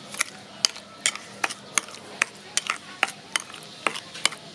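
Metal spoon stirring a thick tomato-paste sauce in a ceramic bowl, clinking against the bowl in a steady rhythm of about two to three clicks a second.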